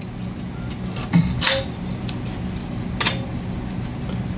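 A few sharp metallic clinks of hand tools on the valve rocker assembly of a Briggs & Stratton 8hp OHV engine as the adjuster and lock nut are tightened while setting valve lash, the clearest about a second and a half in and at three seconds. A steady low hum sits underneath.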